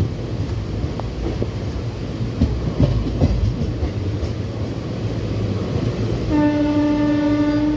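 Train at a railway station: a steady low rumble with a few clanks partway through, then a single steady train horn blast starting about six seconds in.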